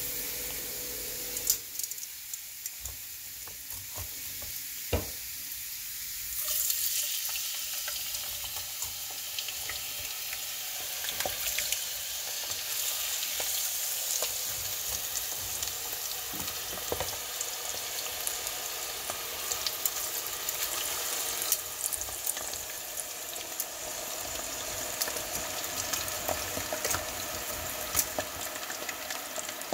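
Cut potato strips frying in a deep fryer's hot oil: a steady sizzling hiss with scattered crackles and pops, which starts about six seconds in. A few sharp knocks sound before the frying starts.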